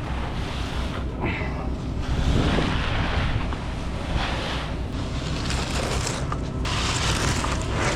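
Steady diesel engine rumble from concrete equipment running, with rushing, scraping noise swelling and fading every second or two.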